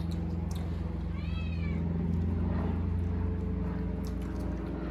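An animal's short high call, rising then falling in pitch, about a second in, over a steady low hum and scattered light clicks.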